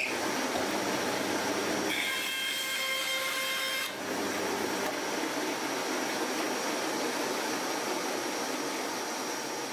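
Bandsaw running and cutting a bird profile out of pine scrap, over the steady rush of dust extraction. From about two seconds in, a pitched whine sounds over the noise for about two seconds, then cuts off suddenly.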